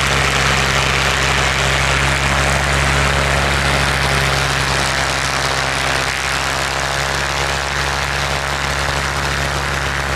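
Aircraft engine running steadily: a low, even drone with a hiss on top.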